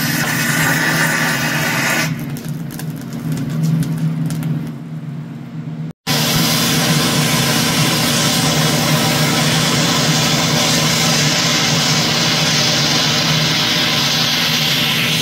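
Cutting torch blowing steadily as it burns out rivets in a steam locomotive's riveted steel boiler sheet. The hiss dulls for a few seconds, cuts out for an instant about six seconds in, then runs on steadily.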